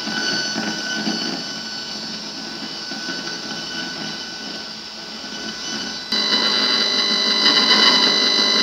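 Electrical interference noise: a steady hiss with several thin, high whistling tones running through it, which jumps abruptly louder about six seconds in.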